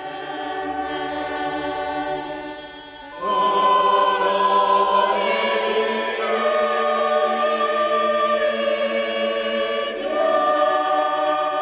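Mixed church choir of men and women singing held chords. A new, louder chord comes in about three seconds in, and the harmony shifts again near the end.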